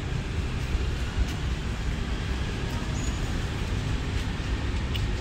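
Steady low outdoor background rumble, with a faint brief high chirp about three seconds in.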